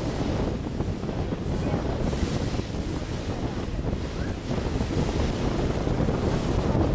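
Wind buffeting the microphone over a steady rush of water, recorded from the deck of a moving ship in open harbor water.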